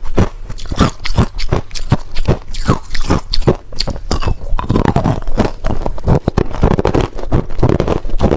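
Ice being chewed close to the microphone: a fast run of loud, sharp crunches, several a second, turning into denser, grinding crackle about halfway through.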